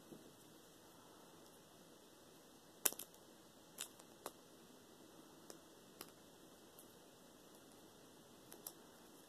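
Small plastic Kinder Surprise toy pieces clicking as they are handled and snapped together by hand: a few scattered sharp clicks, the loudest about three seconds in, over near silence.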